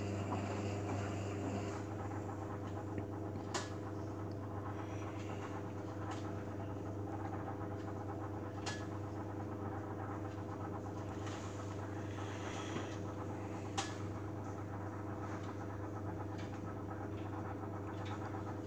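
Beko Eco Care WMA 1510 W washing machine running an Eco 60°C wash: a steady low hum with three sharp clicks, about five seconds apart.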